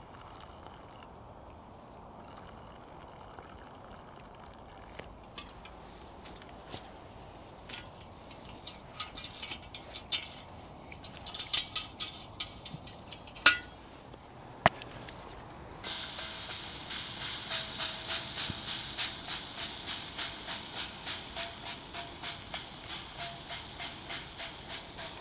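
Stainless steel camp cookware clinking and clattering as the hobo stove and saucepan are set on the wood fire. About two-thirds of the way in, a steady hiss starts suddenly from the saucepan on the fire, swelling and easing about twice a second.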